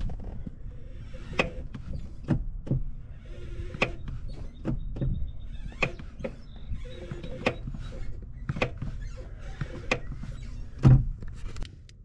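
Clutch pedal of a 1995 Nissan Hardbody pickup being pushed in and let back up by hand, giving a sharp click with the strokes, roughly once a second, from a part not yet traced. A louder thump comes near the end.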